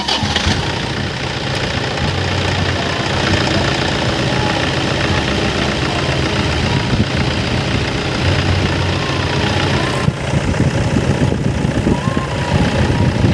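Toyota Innova's D-4D four-cylinder common-rail diesel idling steadily, run up to check a newly fitted 6PK accessory belt.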